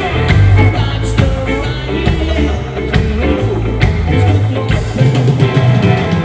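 Rock band playing live at a soundcheck: a prominent bass line with sharp drum hits and electric guitar.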